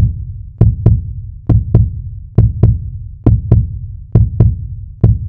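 Heartbeat sound effect: pairs of low thumps (lub-dub), repeating steadily a little less than once a second.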